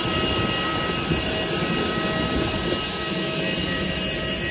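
Steady whine of a parked Airbus A321neo's auxiliary power unit at the gate: several unchanging high tones over an even rushing noise.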